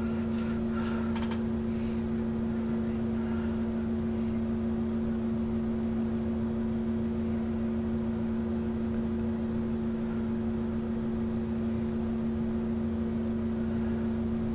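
A steady machine hum, even and unchanging, with a few faint light clicks in the first second or so.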